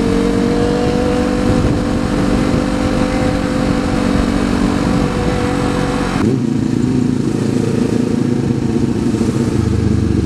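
Kawasaki Z400 parallel-twin engine running at a steady road speed, its note rising slightly, with wind noise on the microphone. About six seconds in the wind noise drops away and the engine note shifts lower, with a low pulsing from the engine near the end as the bike moves slowly.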